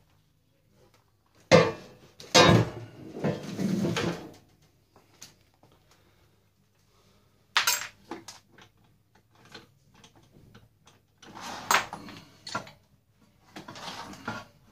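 Steel frame parts of a t-shirt heat press clanking and scraping against each other as they are handled during dismantling. A sharp clank comes about a second and a half in, followed by about two seconds of rattling and scraping, another single clank near the middle, and more clattering near the end.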